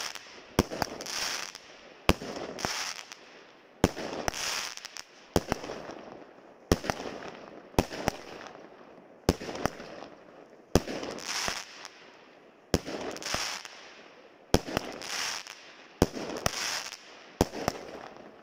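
Big Bang Mars 16-shot, 20 mm calibre fireworks cake firing shot after shot, about one every second and a half. Each shot is a sharp launch report followed by about a second of noise from the shell bursting in the air.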